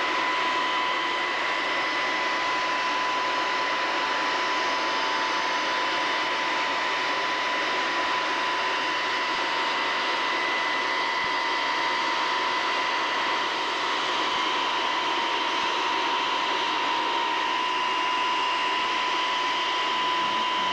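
Steady cockpit noise of a Tu-22 bomber in flight: an even rush of air and jet engine noise with a steady high whine, unchanging throughout.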